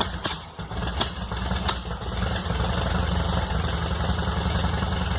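Volkswagen Beetle's air-cooled flat-four engine running, stumbling with a dip and a few sharp pops in the first two seconds, then settling into steady running. Its distributor has just been turned because the ignition was out of adjustment.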